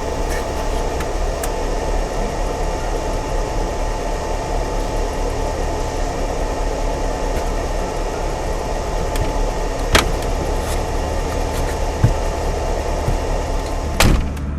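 A steady motor hum with short sharp knocks: one about ten seconds in, a weaker one about two seconds later and another near the end.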